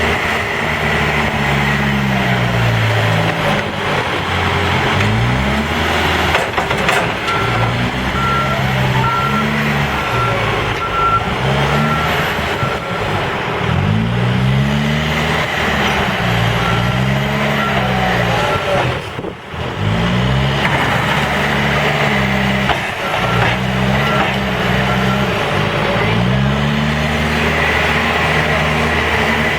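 Case 590 Super N backhoe loader's diesel engine revving up and down over and over under working load. A backup alarm beeps steadily for several seconds, stops, then starts again later.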